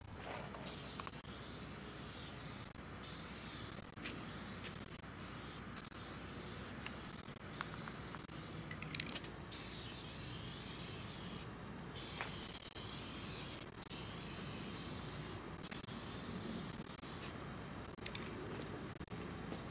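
Aerosol spray-paint can spraying graffiti onto a wall in repeated bursts of a second or two, with short breaks between them.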